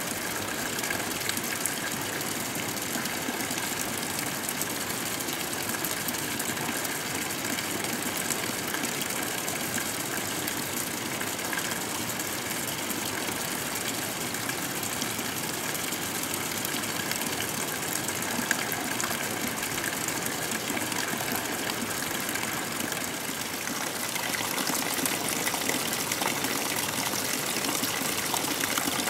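Steady rushing of flowing river water in a headwater stream. It gets a little louder and brighter near the end.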